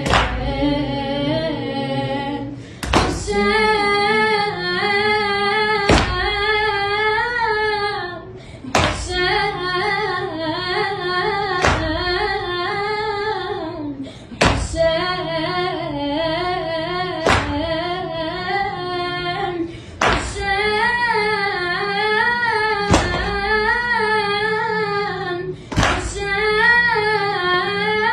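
A boy's voice singing an Arabic Husayn lament chant, a wavering, ornamented melody with only short breaks. Sharp hand strikes keep a slow, regular beat about every three seconds.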